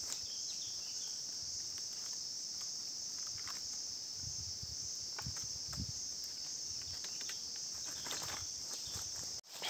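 Steady high-pitched insect chorus, with scattered light crackles and a few low thuds from dry leaves and sticks being walked on and handled. The sound drops out briefly near the end.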